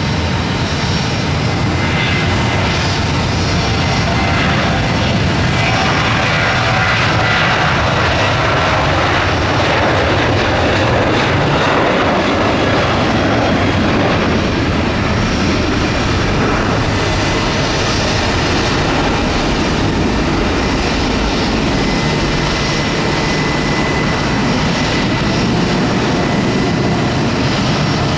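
Boeing 737-700's two CFM56-7B turbofan engines at takeoff thrust through the takeoff roll and climb-out: a loud, steady jet noise that swells through the middle, with a thin high whine heard at times.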